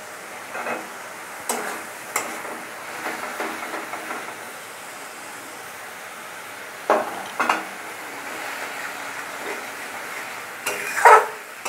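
Masala paste frying in oil in a steel kadai, sizzling steadily, as it is fried down until its raw smell is gone. A steel spatula scrapes and knocks against the pan every few seconds as it is stirred, loudest near the end.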